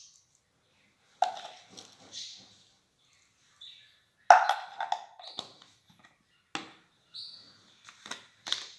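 Metal spoon knocking and clinking against a ceramic bowl and spice container as spices are added, several separate strikes with short ringing, the loudest about four seconds in.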